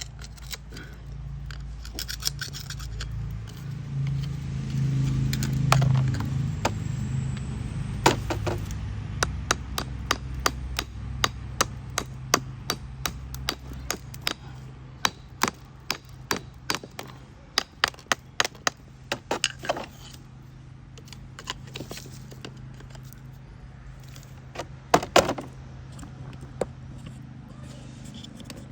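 Pieces of stone being handled, tapped and knocked apart: a long run of irregular sharp clicks and knocks, with a low hum that swells about five seconds in and then fades.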